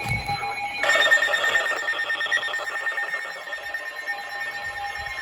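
Emergency Alert System SAME header: rapid warbling digital data tones start abruptly about a second in, over a steady high electronic whine, marking the start of a new weather warning broadcast.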